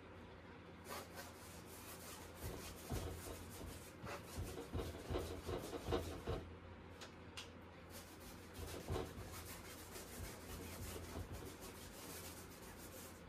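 Paintbrush scrubbing and dragging paint across a large canvas in irregular rasping strokes, some quick and close together.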